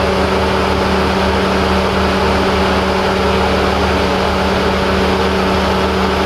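Ship's engine machinery running with a steady hum, several fixed tones over an even mechanical noise, unchanging throughout.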